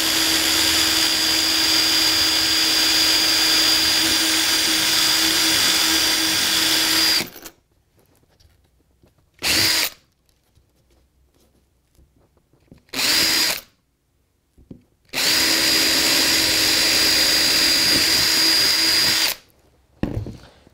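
Makita cordless drill drilling holes through foam trackbed into the wooden baseboard, its motor running at a steady speed with a constant whine. One long run of about seven seconds, two short bursts, then a second run of about four seconds.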